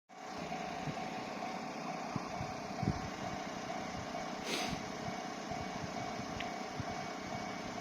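Steady engine-like mechanical running noise with a faint steady hum in it, with a few low thumps and a short hiss about four and a half seconds in.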